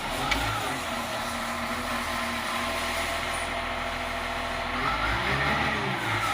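Caterpillar 950H wheel loader's diesel engine catching and starting, then running, with a sharp click just after it fires. The pitch wavers about five seconds in. The engine is running unstably, as if misfiring, with fault codes on the atmospheric pressure sensor circuit.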